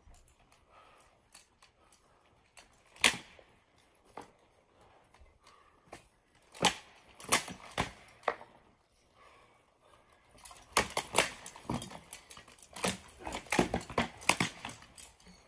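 Armoured sparring: sharp knocks of practice weapons striking wooden shields and armour. A few single blows come in the first half, the loudest about three seconds in, then a rapid flurry of strikes fills the last five seconds.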